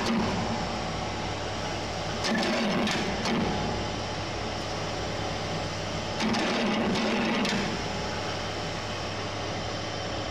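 Charcoal briquette extruder running, its motor and belt drive giving a steady hum. Louder spells of scraping with clicks come about every four seconds.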